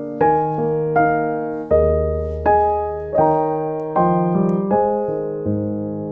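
Background piano music: a slow, gentle melody of struck notes and chords, each fading before the next.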